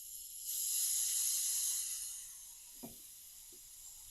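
Compressed air hissing into a brake caliper to blow its pistons out. The hiss swells about half a second in and fades away after about two seconds, with a small tick near the end.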